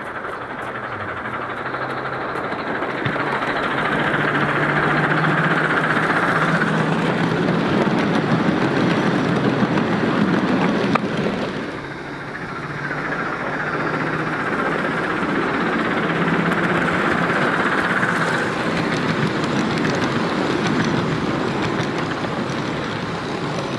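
Gauge 3 model train running on its rails close by: a steady rolling rumble and rattle of wheels on track. It builds up, drops away sharply about halfway, then builds again.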